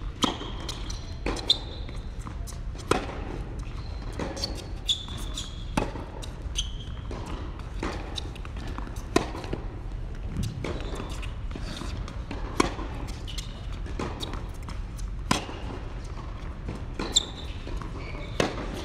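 A tennis rally on an indoor hard court: sharp pops of rackets striking the ball and the ball bouncing, every second or two, echoing in a large hall, with short high squeaks of shoes between shots.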